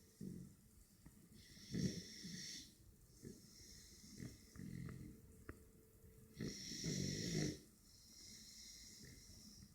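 American bulldog puppy snoring in its sleep: two stronger snores about five seconds apart, each with a high whistle on top, and softer snoring breaths between them.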